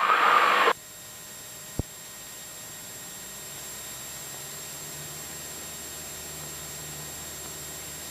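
Cessna 172SP cabin noise as picked up through the intercom: a steady hiss of engine and airflow with a faint low hum, growing slightly louder about three seconds in as the takeoff run gets under way. A brief loud sound at the very start and a single click near two seconds in.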